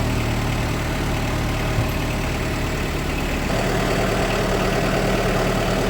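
Kubota M59 backhoe's diesel engine running steadily. A higher steady whine joins about three and a half seconds in.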